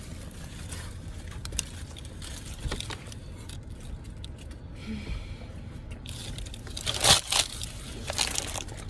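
Paper food wrapper crinkling and rustling, with chewing, over a steady low rumble; a sharp burst of crinkling about seven seconds in is the loudest sound.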